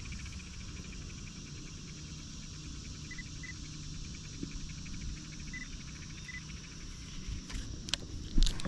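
Insects trilling in a fast, steady pulse, with a few short high beeps. Several sharp clicks and one loud knock come near the end.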